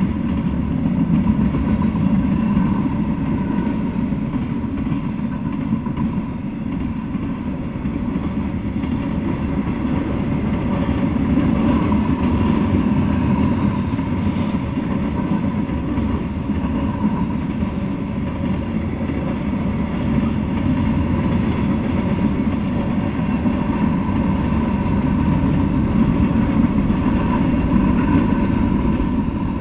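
Freight train cars rolling past on the rails: a steady rumble of steel wheels on track, easing off right at the end as the last cars go by.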